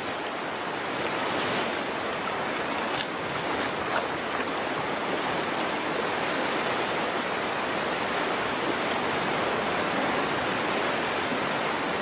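Rushing stream water, a steady even rush.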